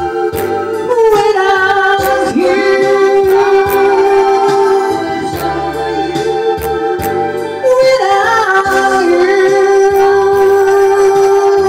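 Slow rock music from a karaoke-style backing track: a steady beat and bass line under long held melody notes that bend in pitch about a second in and again near the end.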